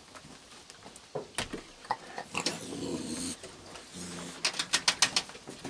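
Raccoons making low growls and chitters, mixed with scattered knocks and scuffles on a wooden deck. Just past the middle comes a quick run of about six sharp clicks.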